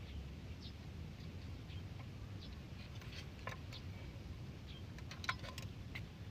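Scattered light clicks and taps of metal parts being handled while a hydraulic travel motor is put back together, with a cluster of sharper clicks about five seconds in, over a steady low rumble.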